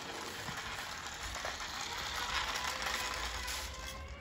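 Toy remote-control jeep's small electric motor and plastic gears whirring as it drives over floor tiles, loudest in the middle.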